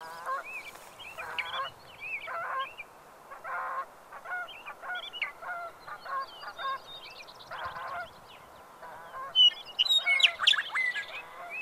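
A flock of waterfowl honking, many short calls one after another, with sharper, higher calls loudest near the end.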